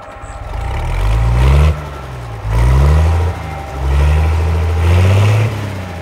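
A heavy vehicle's engine accelerating in four rising pulls, its pitch dropping back between them as if through gear changes.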